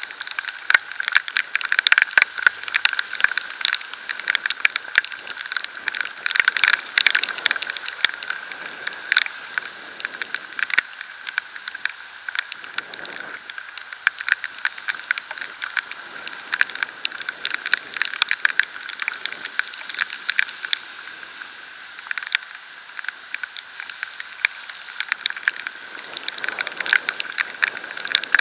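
Rain and road spray pelting the camera while riding at speed: a dense, irregular patter of sharp drop hits over a steady hiss.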